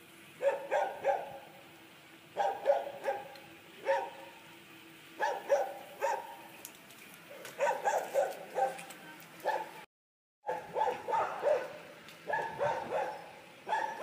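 Dog barking repeatedly, in quick runs of two to four barks that come every second or two.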